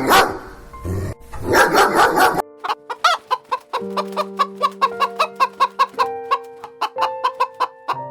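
A chicken clucking in a quick burst of rapid calls, about one second long, followed by background music of short plucked notes over held tones.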